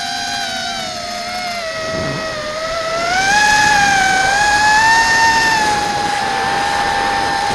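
Airblade ZMR150 mini racing quadcopter's motors and propellers whining, heard up close from its own onboard camera. The pitch sags slightly, then rises about three seconds in and holds higher as the motors speed up.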